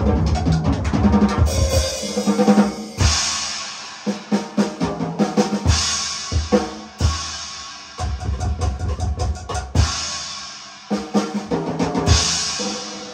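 Drums playing: quick runs of sharp hits with a heavy low thud, and a burst of high, washy noise every three to four seconds.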